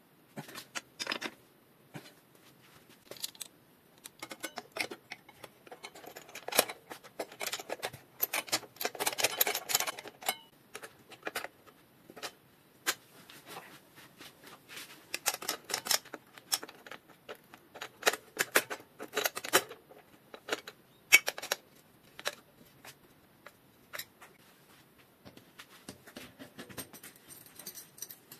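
Irregular metallic clicks, clinks and rattles of hand work on a mountain bike's components and tools, in a few short busier stretches.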